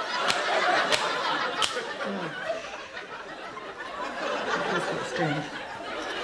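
Three sharp smacks of a hand striking a head in the first two seconds, over steady crowd laughter.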